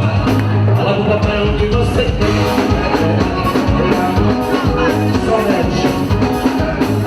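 Forró band music with a singer over a steady beat.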